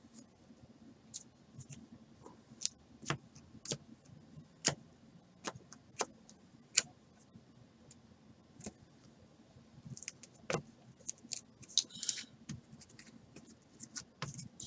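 Trading cards being sorted by hand and set down on a tabletop: a run of irregular sharp clicks and taps, with a brief flurry of rustling clicks about ten seconds in.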